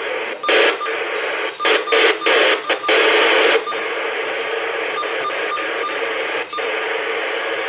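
Radio static: a loud hiss that breaks in and out several times over the first three and a half seconds, then settles into a steadier, slightly quieter hiss with faint ticks.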